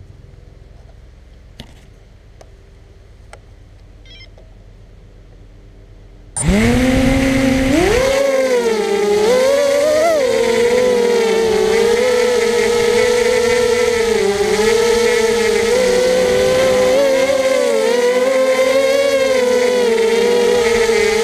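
Quadcopter brushless motors (2204, 2300 kV) and propellers spinning up suddenly about six seconds in, after a few faint ticks. They then whine steadily and loudly, heard from the onboard camera, the pitch rising and dipping with throttle as the craft flies.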